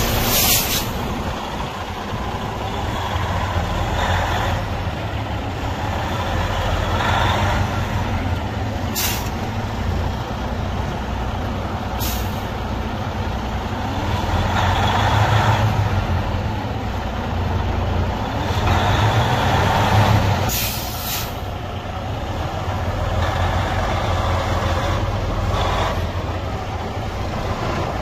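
Freightliner Cascadia truck tractor's Detroit Diesel engine running at idle, swelling up twice for a few seconds. Short sharp hisses of air from the truck's air brake system come through four times.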